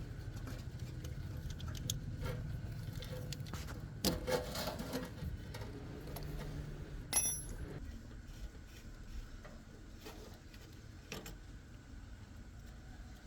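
Metal tools and parts clinking and knocking during mechanical repair work, with a ringing metallic clink about seven seconds in, over a steady low hum.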